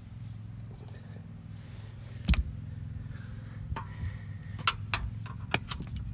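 Sharp metallic clicks of a grease gun's coupler being worked onto a wheel-bearing grease zerk: one loud click a little after two seconds in, then a run of quicker clicks near the end. A steady low hum underneath.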